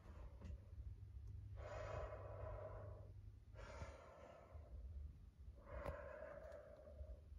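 A person breathing heavily near the microphone: two long breaths of about two seconds each, one around two seconds in and one near the end, over a low handling rumble.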